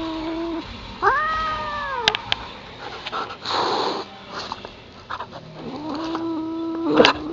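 Tortoiseshell cat yowling in long, level moans, with a higher call that rises and falls about a second in and a short hiss midway. It is the cat's defensive warning at a husky puppy it doesn't like.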